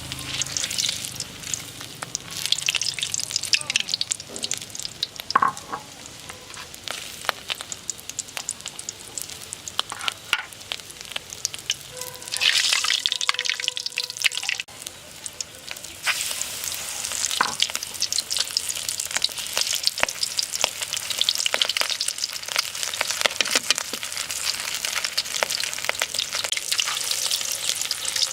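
Battered loach deep-frying in hot oil: a steady crackling sizzle full of sharp spatter pops. It swells louder about twelve seconds in and again from about sixteen seconds on.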